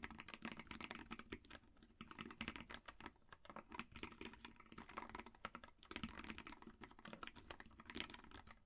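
Keyball44 split keyboard with linear switches being typed on continuously: a rapid, uneven run of keystroke clicks, with brief pauses between bursts.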